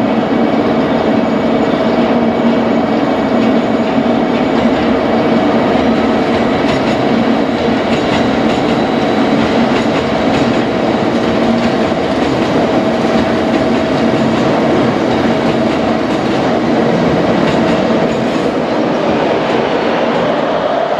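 JR Kyushu electric commuter train running past the station platform: a steady, loud rumble of wheels on rails, with some clicking over rail joints.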